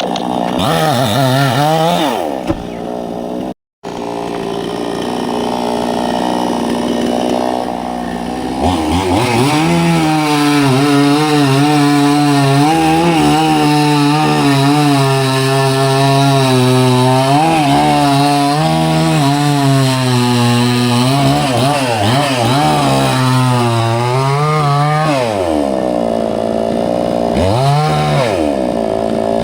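Two-stroke chainsaw running at high revs and cutting into a coconut palm trunk, its pitch wavering as the chain bogs under load and picks up again. The sound cuts out for an instant about four seconds in, and near the end the revs drop and then climb back.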